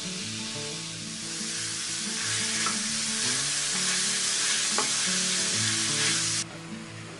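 Minced meat sizzling in a hot stainless steel frying pan as it is stirred and broken up with tongs. The sizzle grows louder about two seconds in and cuts off abruptly near the end. Soft background music plays underneath.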